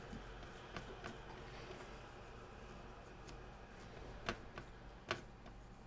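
Faint rubbing of a cloth dampened with rubbing alcohol over a laptop CPU, with a few light ticks, two sharper ones in the second half.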